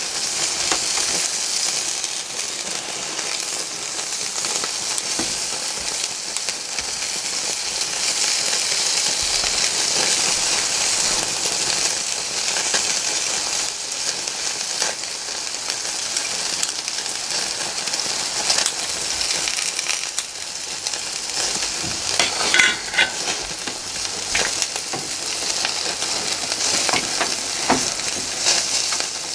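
Chunks of meat and a bone-in rib sizzling steadily on a barbecue grill's wire mesh over open flame, fat flaring up as it cooks. Scattered sharp pops and clicks, with a louder cluster about three quarters of the way through.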